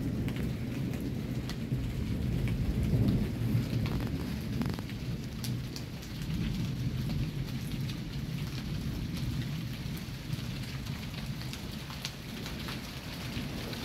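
Steady rain falling in a thunderstorm, with low rolling thunder underneath that swells about three seconds in. Scattered sharp ticks of single drops hitting nearby surfaces.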